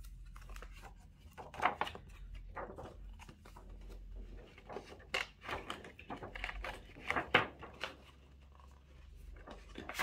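Clear plastic packaging sleeve and card insert of a new planner being handled, rustling and crinkling irregularly, with a few louder crackles.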